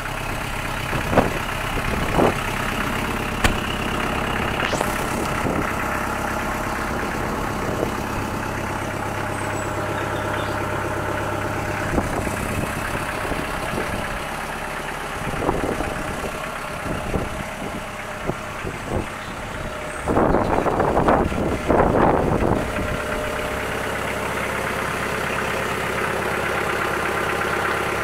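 Kubota L2501 compact tractor's three-cylinder diesel engine idling steadily, with scattered clicks and knocks over it and a louder rough noise for about two seconds around twenty seconds in.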